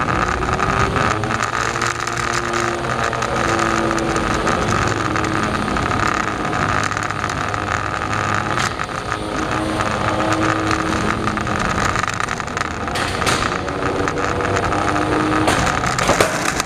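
Small combat robots' electric motors whining: a steady high whine runs throughout, while lower motor whines rise and fall in short stretches as they drive. A few sharp knocks of the robots hitting each other come in the second half.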